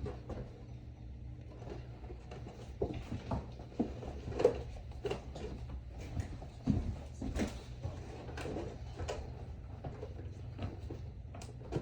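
Scattered knocks and clicks of objects being handled, irregular and a second or two apart, over a steady low hum.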